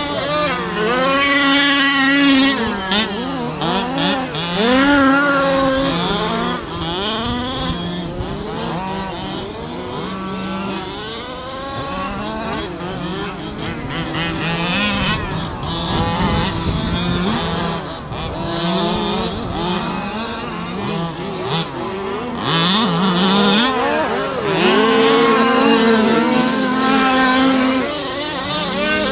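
Small two-stroke petrol engines of several 1/5-scale RC cars (HPI Baja, Losi 5ive type), revving hard and easing off over and over as the cars race, several at once.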